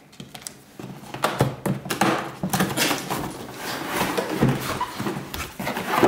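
A cardboard box being opened by hand: a tape seal peeled off, then the cardboard lid and flaps scraping and rustling, with many small knocks.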